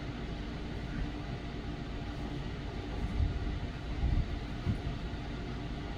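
A few soft, low thuds in the second half, over a steady low hum: a non-marring plastic or rubber hammer tapping the tight-fitting side plate of a Smith & Wesson Model 629 revolver down into the frame.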